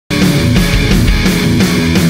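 Loud heavy rock music with a driving drum beat, starting abruptly just after the start.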